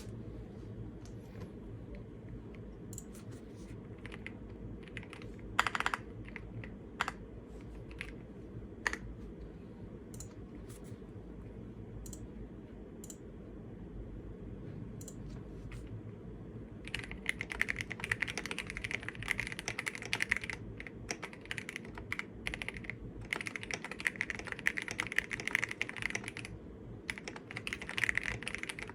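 Keystrokes on an M1W mechanical keyboard: scattered single key presses at first, then fast continuous typing through the second half, over a low steady hum.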